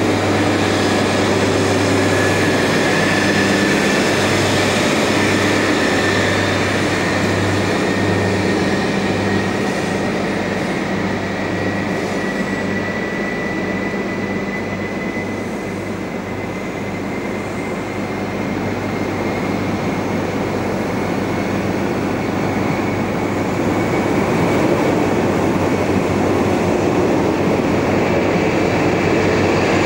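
Train running, with a high whine that slowly rises in pitch over a steady low hum.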